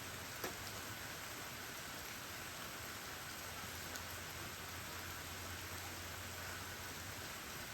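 Steady rain falling, an even hiss with an occasional single drop ticking, one about half a second in.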